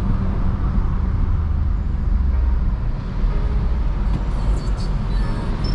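Cabin noise of an F56 Mini Cooper S cruising: a steady low rumble of road and engine noise heard from inside the car.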